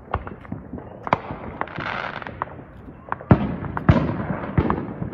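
Fireworks and firecrackers going off on New Year's Eve: many scattered sharp pops, a short hissing rush about two seconds in, then several louder bangs a little after three seconds.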